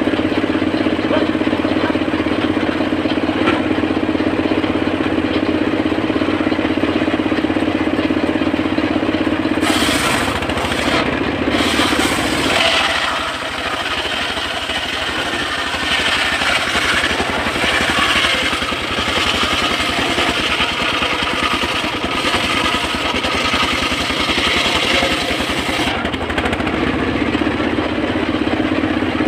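Homemade engine-driven circular sawmill running with a steady hum. About ten seconds in, the blade starts cutting through a teak log and a hissing sawing noise takes over for about sixteen seconds, then it drops back to the free-running hum near the end.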